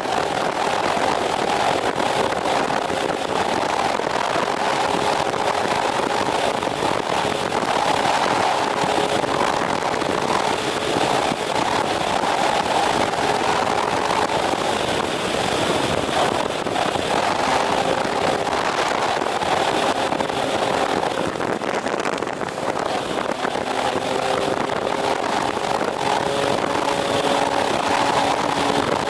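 Motorcycle engine running steadily at expressway cruising speed, its hum shifting a little in pitch now and then over a steady rushing noise.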